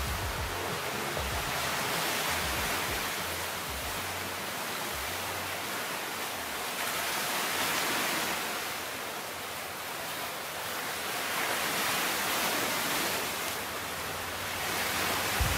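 Ocean surf washing onto the beach: a steady rush that swells and eases about every five seconds as waves break.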